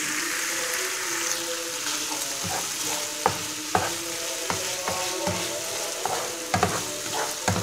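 Chicken strips with onion and pepper sizzling in oil in a frying pan, starting to brown. A utensil stirs them, with irregular scrapes and knocks against the pan from a few seconds in.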